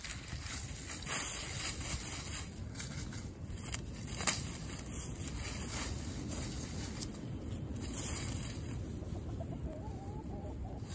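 Free-ranging chickens (Australorp hens and a Brown Leghorn rooster) scratching and pecking through dry leaves: crackly rustling with a few soft clucks, and one sharp click about four seconds in. A low rumble of wind on the microphone runs underneath.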